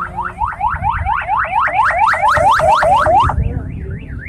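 Loud electronic siren sounding in rapid rising whoops, about five a second, then switching a little past three seconds in to a slower up-and-down wail. Low engine rumble runs underneath.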